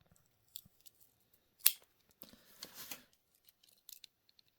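A folding pocket multitool being handled between measurements: one sharp metallic click a little over a second and a half in, a brief scrape soon after, and a few small ticks near the end.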